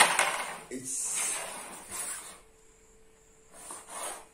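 A carrom striker is flicked with a sharp click, followed by about two seconds of hissing as the striker and coins slide across the powdered carrom board. Near the end comes a shorter rasp as the striker is slid into place for the next shot.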